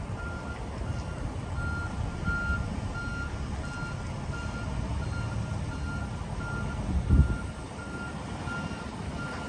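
Semi truck's backup alarm beeping steadily, about two beeps a second, over the low rumble of the truck reversing a trailer. A single heavy low thump about seven seconds in.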